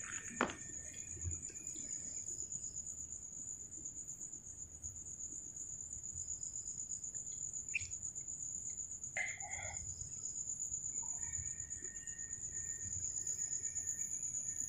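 Night insects, likely crickets, trilling steadily at a high pitch, with a few short animal calls about halfway through.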